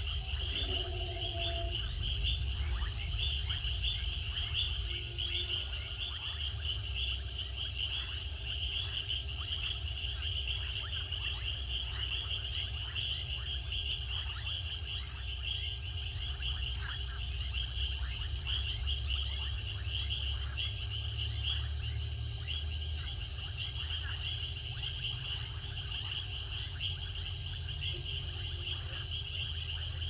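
Night insect chorus: crickets trilling continuously, with a second insect's short pulsed chirps repeating about once a second, over a low steady rumble.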